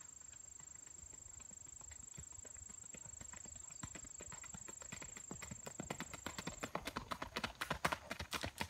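Hooves of a single-footing stallion striking a gravel road in a fast, even four-beat gait, the hoofbeats growing louder as the horse comes closer.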